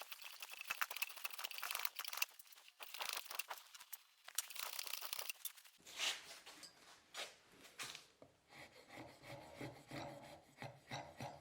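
Hand-tool blade shaving a hickory handle blank in repeated scraping strokes, thinning the wood down. From about halfway a faint steady low hum comes in under fainter strokes.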